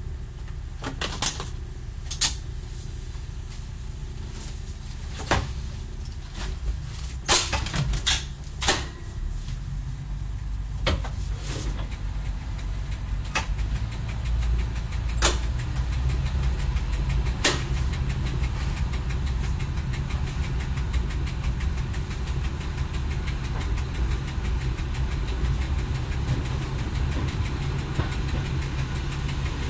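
Diesel engine of a Y1 railcar running as it pulls away, heard from the driver's cab, its low drone growing louder about nine seconds in and again about fourteen seconds in. A scatter of sharp knocks sounds over it, mostly in the first half.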